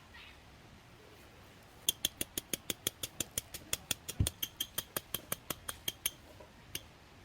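A quick, even run of sharp clicks, about six a second, lasting about four seconds.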